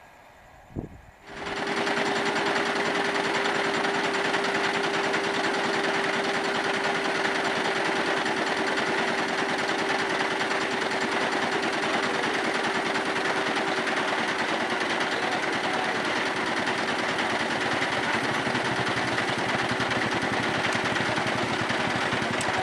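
Level-crossing warning bell ringing without a break: a fast, even rattle of strikes over one steady tone. It starts suddenly about a second in and holds the same loudness.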